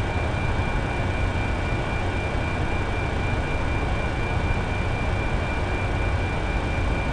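Steady rush of air with a low rumble and a thin, constant high whine inside a Boeing 747 cockpit: the auxiliary power unit running and the air conditioning blowing.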